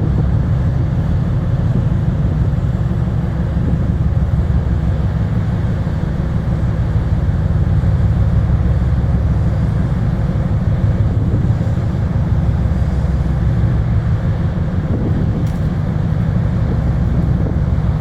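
Steady low rumble of a ship underway, most likely the icebreaker Varma's engines and hull heard from on board.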